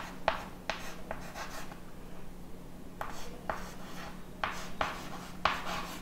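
Chalk writing on a chalkboard: a string of short scratchy strokes and taps as letters are written, with a pause of about a second partway through.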